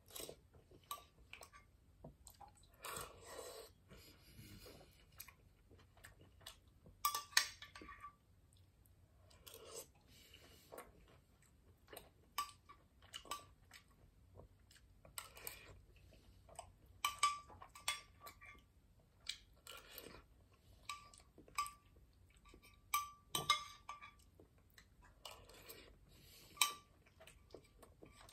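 A metal spoon clinking and scraping against a glass food container, many short clinks with a brief ringing note, between close chewing and mouth sounds of a person eating eggs.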